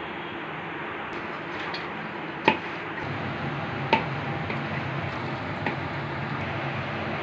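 A few sharp clinks against a stainless steel mixing bowl while sliced onions and gram flour are mixed by hand into bhajiya batter, over a steady background hiss and hum.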